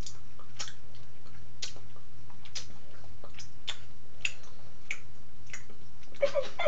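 Irregular small clicks, roughly one every half second to a second, over a steady low hum.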